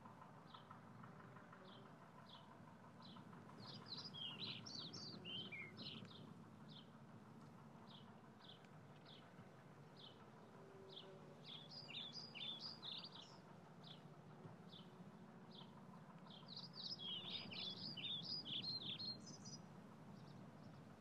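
Small songbirds calling faintly: a steady series of single high chips, one or two a second, broken three times by short bursts of quick, jumbled twittering.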